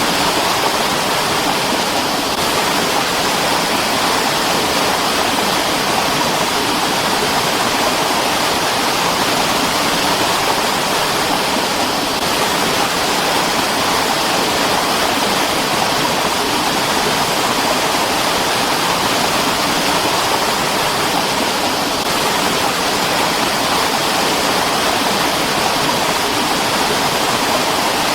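Mountain stream rushing over rocks: a steady, loud, unbroken water noise.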